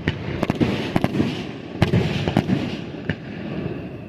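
Fireworks finale: aerial shells going off in rapid succession, a quick run of sharp bangs and crackles over continuous rumbling.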